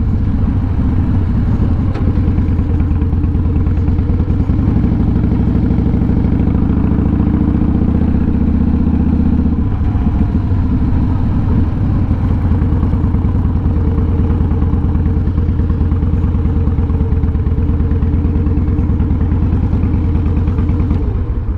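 Harley-Davidson V-twin motorcycle engine running steadily while the bike is ridden, its low pulsing note strongest from about five to ten seconds in.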